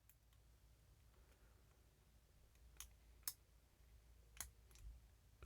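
Faint, sparse clicks of a lock pick working the pin stacks of a vintage Eagle barrel padlock, about four light ticks in the second half against near silence.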